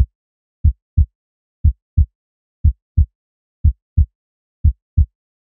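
Heartbeat-style sound effect: paired low thumps, the second about a third of a second after the first, repeating about once a second.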